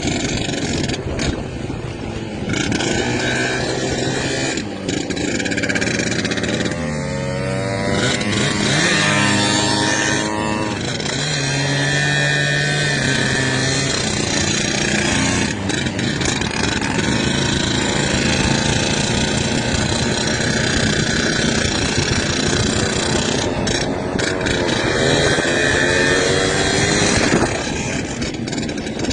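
Two-stroke motorcycle engines running, rising in pitch as they rev up and accelerate a quarter of the way in and again near the end.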